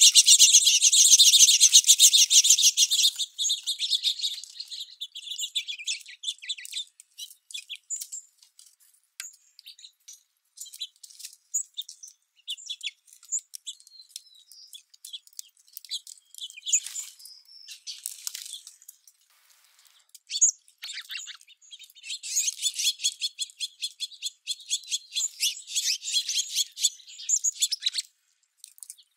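Flock of small songbirds chirping and twittering, with dense rapid chirping at the start and again in the last several seconds and scattered single chirps between.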